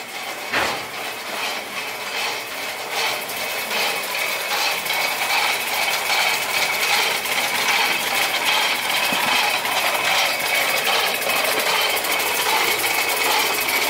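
An engine running steadily at idle, with a fast even pulsing. It grows louder over the first several seconds and then holds. A single knock comes about half a second in.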